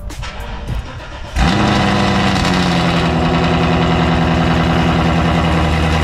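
A car engine starts about a second and a half in, flares briefly, then settles into a loud, steady idle.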